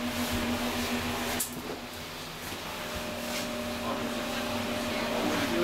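Steady hum and whir of a heritage 1500 V DC electric train's equipment, with a constant low tone under it. A short click about a second and a half in.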